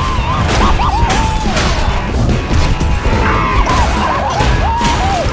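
Background music overlaid with a fight's sound effects: repeated hits and crashes, with a warbling pitched tune in two runs.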